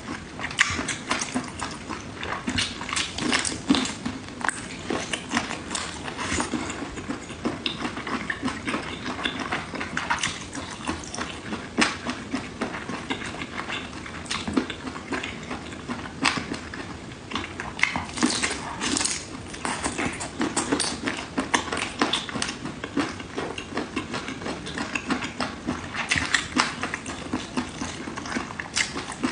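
A person chewing octopus: a steady run of many irregular, wet mouth clicks and chewing sounds.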